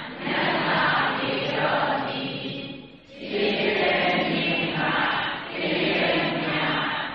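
Buddhist chanting in Pali by a group of voices in unison, in long held phrases, with a brief pause for breath about three seconds in.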